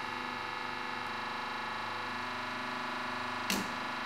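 40-ton hydraulic press's pump and motor running with a steady multi-tone hum as the ram loads a PLA 3D-printed part. About three and a half seconds in, one sharp crack as the printed plastic part breaks at about 200 kg.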